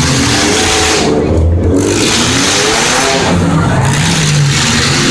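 Several demolition derby cars' engines revving at once, their pitch rising and falling over a dense roar of exhaust noise.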